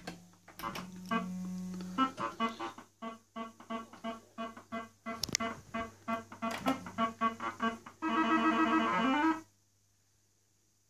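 Old fruit machine's electronic sound effects: a held tone, then a fast run of short beeping notes, with a sharp click about five seconds in. A warbling trill follows about eight seconds in and ends in a rising sweep, then the machine's sounds stop.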